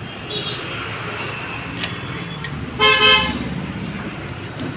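A vehicle horn sounds once, briefly, about three seconds in. Under it is a steady background of street noise and a couple of faint clicks.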